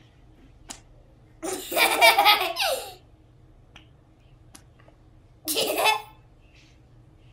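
Young children laughing: a loud burst about a second and a half in, then a shorter one around five and a half seconds, with a few faint clicks between.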